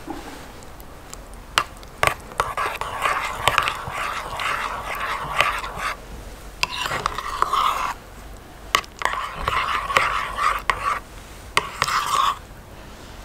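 Metal spoon stirring a thick creamy sauce in a ceramic bowl: wet, squelching scraping in three spells, with a few sharp clinks of the spoon against the bowl.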